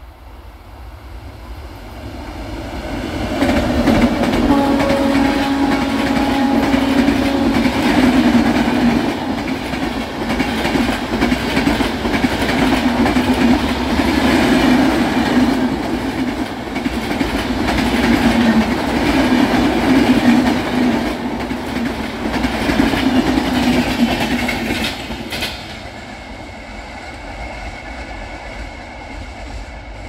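Indian express train hauled by an electric locomotive passing at high speed: the locomotive's horn sounds a few seconds in as it approaches, then the coach wheels clatter over the rail joints with a steady rumble and rattle. The sound drops off suddenly near the end.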